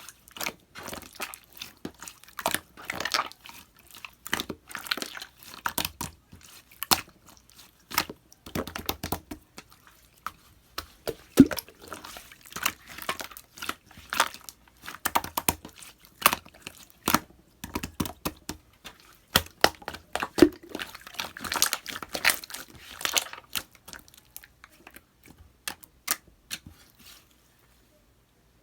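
Clear slime being squeezed and pressed by hand, giving irregular sticky clicks, small bubble pops and squelches. The sounds stop about a second and a half before the end.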